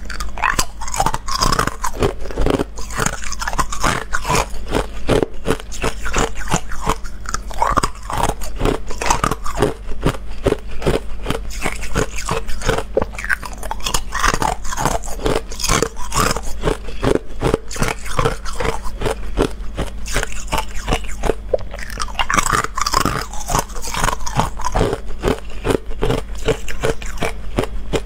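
Clear ice cubes bitten and chewed: a dense, unbroken run of sharp cracks and crunches.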